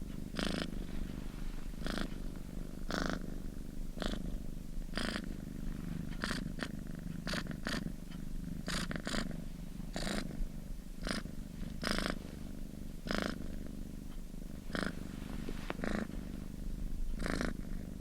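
Domestic cat purring steadily, a continuous low rumble broken by a short breathy rush about once a second.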